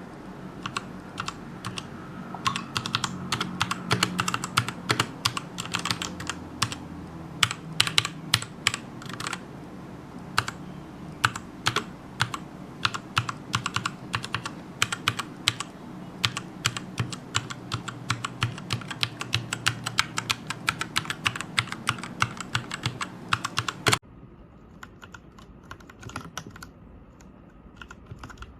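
Typing on a Royal Kludge RK61 mechanical keyboard: a fast, irregular run of key clicks and clacks. About 24 seconds in, the sound cuts abruptly to a quieter take, where the typing goes on more faintly.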